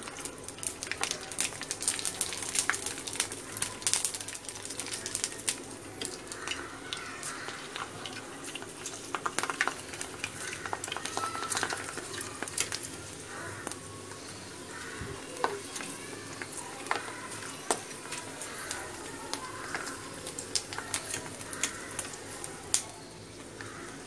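Sabudana papad deep-frying in hot oil: a steady sizzle with many sharp crackles and pops as the papad puffs up.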